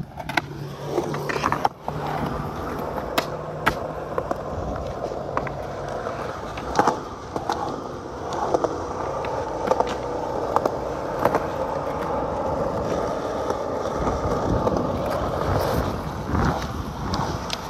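Skateboard wheels rolling over concrete: a steady rolling rumble with sharp clicks and knocks now and then.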